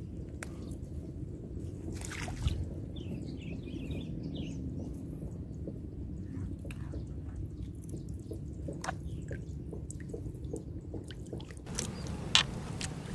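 Waterside ambience: a steady low rumble with scattered small clicks and taps. There are sharper clicks about two and a half seconds in and near the end, and a faint high twittering a few seconds in.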